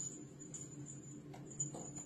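Faint steady low hum with a thin high whine. A few soft, brief scuffs about halfway and near the end, from a kitten chewing a feather toy on a corrugated cardboard scratcher.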